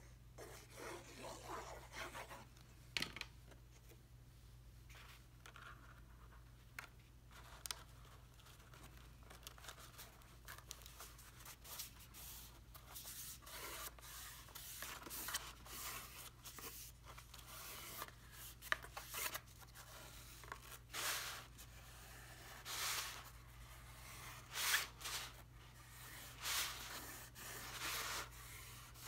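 Hands handling card stock: faint rustling, rubbing and light taps as a glued card stock panel is set and pressed down inside a paper napkin holder, busier in the second half, over a steady low hum.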